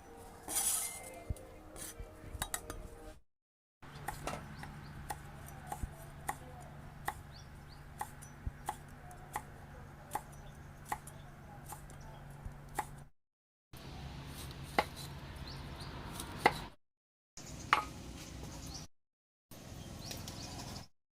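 Kitchen clatter of food preparation: a run of sharp clinks and taps from utensils against dishes or a board, about one or two a second, over a low steady hum, broken several times by abrupt cuts to silence.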